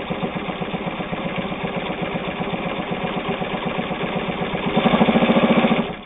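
Kenmore 158.521 all-steel gear-driven zigzag sewing machine running steadily, its needle stitching through two layers of split leather. It speeds up and gets louder near the end, then stops.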